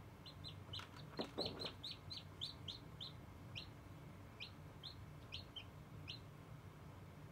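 Hatching chick peeping: a run of short, high cheeps, each falling in pitch, about four a second at first and then sparser, with a brief rustle about a second in.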